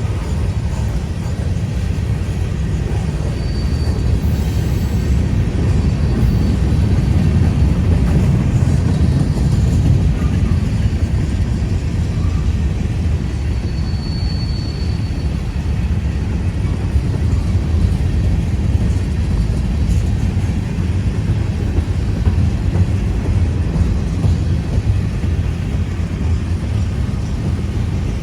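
Loaded freight cars of a long train rolling past on a grade, a steady low rumble, with a thin high wheel squeal briefly twice.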